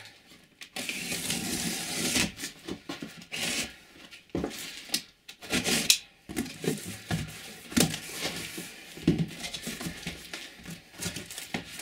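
Box cutter slitting the packing tape along a large cardboard box, with irregular scraping and tearing of tape and cardboard. Near the end the cardboard flaps are pulled open and crinkle-cut paper packing filler rustles.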